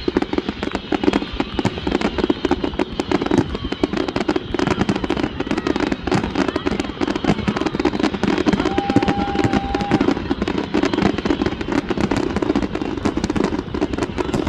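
Fireworks display going off in a dense, continuous barrage of bangs and crackles, with a brief steady high tone about nine seconds in.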